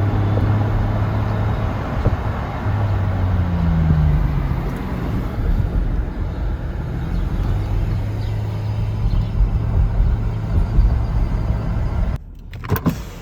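Steady rumble and hiss of a moving road vehicle, with a low hum and a brief pitch glide about four seconds in.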